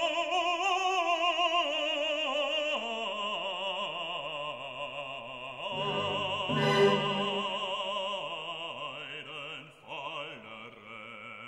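Operatic singing with a strong vibrato on long held notes, as background music.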